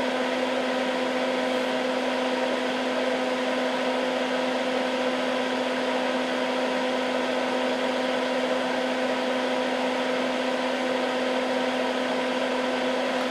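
Hakko smoke absorber (a soldering fume extractor fan) running steadily: an even rush of air with a constant low hum.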